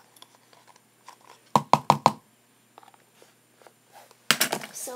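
A plastic glue bottle rapped hard against a surface to get the last of the glue out: four quick knocks about one and a half seconds in, and another flurry of knocks near the end.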